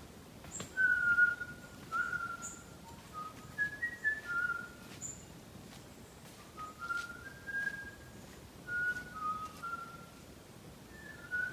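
A person whistling a slow tune of single held notes that step up and down in pitch, with a few faint high bird chirps and light clicks behind it.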